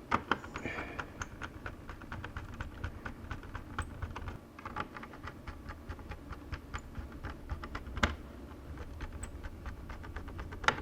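Rapid, irregular light clicks and taps of hands working on a partly reassembled laptop's plastic case, with one louder knock about eight seconds in.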